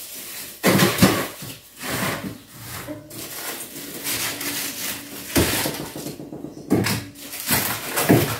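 Frozen food packages being shifted around in a fridge's freezer compartment: plastic bags rustling and frozen items knocking against each other and the shelves, in several separate bursts.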